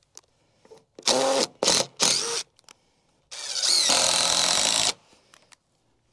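A handheld power drill run in three short bursts, then held on for about a second and a half.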